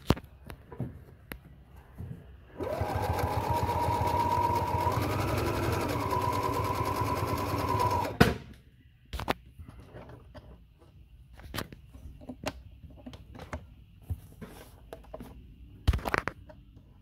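Husqvarna Viking 610 electric sewing machine running at speed, stitching through quilted leather: a steady motor whine over a fast needle rhythm that starts a few seconds in and stops abruptly about five seconds later with a click. Scattered clicks and knocks come before and after it.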